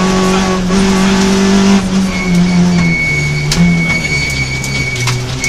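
Rally car engine heard from inside the cabin on a gravel stage, running at high revs and then dropping in pitch in several steps from about two seconds in as the car slows for a turn. Gravel noise underneath, with a few sharp stone clicks against the bodywork near the end.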